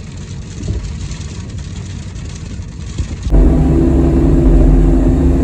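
Kobelco SK85 excavator's diesel engine running with a low rumble. About three seconds in, the sound jumps abruptly louder to a steady engine drone with a clear hum.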